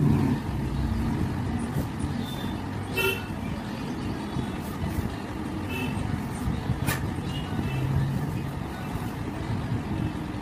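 Road traffic: a steady rumble of engines with a few short vehicle-horn toots, and a sharp click about seven seconds in.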